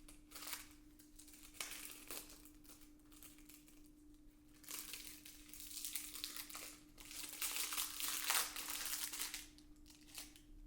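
Plastic film wrapper of a convenience-store tuna onigiri crinkling as it is peeled off by hand, in short scattered crackles that get busier about halfway through.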